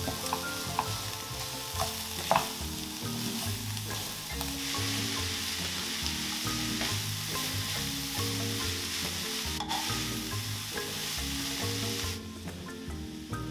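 Shredded cabbage, carrot and bell pepper sizzling in olive oil in a frying pan while a wooden spatula stirs them, with a few clicks and scrapes of the spatula against the pan in the first couple of seconds. The sizzle thins near the end.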